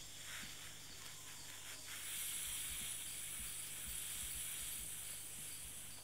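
Female blue-legged chameleon hissing: a soft, steady hiss that swells about two seconds in and eases off near the end, a threat display rejecting the male.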